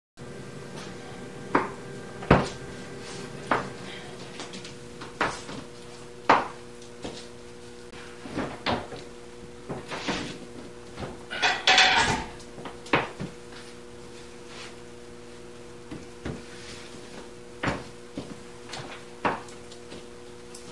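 Scattered knocks and clunks as a heavy animatronic figure and a hand truck are moved and set down, with a louder scraping rustle in the middle, over a steady hum.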